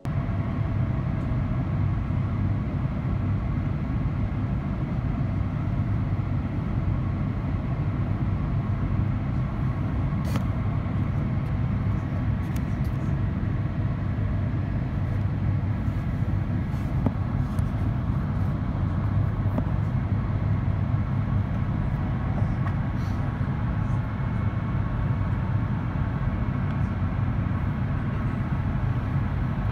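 Steady cabin noise inside an Airbus A350-900 in descent, a deep rumble of airflow and Rolls-Royce Trent XWB engines heard from a window seat beside the wing, with faint steady tones above it and a few faint ticks.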